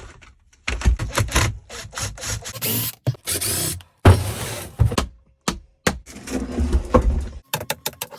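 A resin table top being taken out of its mold: a string of knocks and thumps with longer scraping noises, two of them about 2.5 and 4 seconds in.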